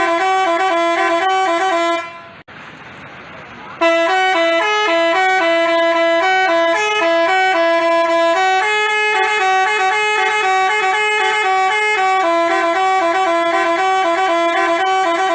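Basuri telolet horn playing a tune of held notes that step up and down in pitch. It stops about two seconds in and, after a short gap, starts again with a longer tune.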